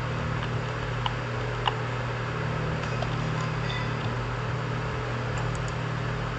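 Steady low background hum, like electrical or computer-fan noise picked up by a desk microphone, with two faint clicks about a second and nearly two seconds in.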